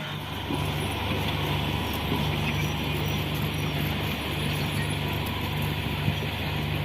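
Excavator engine running steadily, a constant low hum with no pause.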